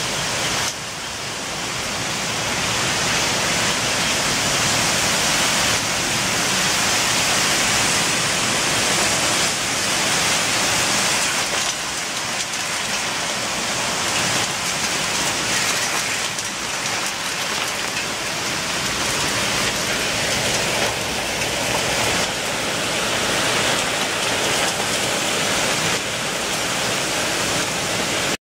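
Heavy rain pouring down steadily in a storm.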